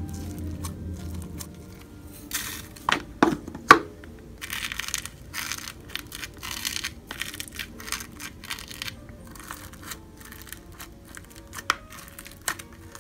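Glitter slime being squeezed and poked by hand in a plastic tub, giving sticky crackles and popping clicks, with a cluster of sharp pops about three to four seconds in and scattered clicks after.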